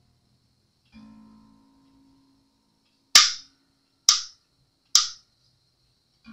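A string on a headless Steinberger Spirit is plucked once and fades, followed by three sharp, loud clicks about a second apart.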